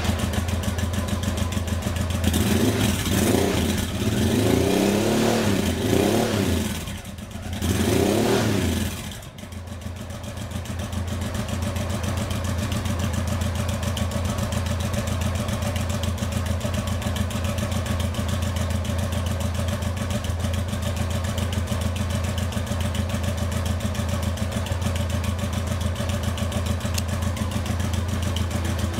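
Motorcycle V-twin breathing through an INOX OVAL stainless silencer fitted with its dB-killer, revved in about four quick blips that rise and fall during the first nine seconds, then settling into a steady idle.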